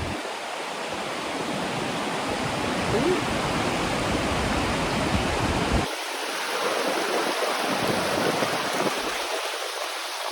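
Steady rushing of a waterfall and stream, an even wash of water noise. A low rumble underneath cuts off suddenly about six seconds in.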